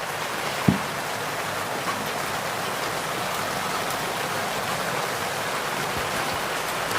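Steady rain falling, an even hiss of water, with a single short knock under a second in.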